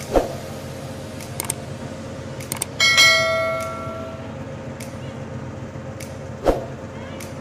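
YouTube subscribe-button sound effects: a few mouse clicks, then a notification bell chime that rings out and fades over about a second. A short falling-pitch blip comes just after the start and another near the end, over a steady background hiss.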